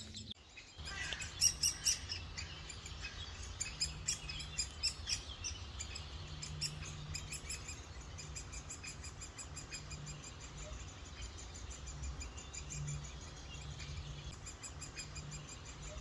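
Woodpecker nestlings begging from a nest hole in a tree trunk: a constant run of short, high-pitched calls repeated several times a second, over a faint low hum.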